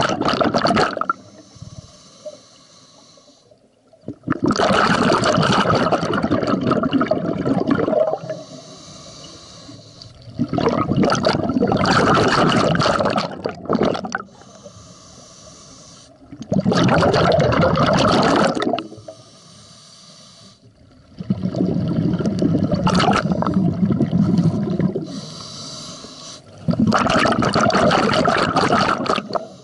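Scuba diver breathing underwater through a regulator: loud gushes of exhaled bubbles lasting a few seconds each, about six times, between quieter hissing inhalations.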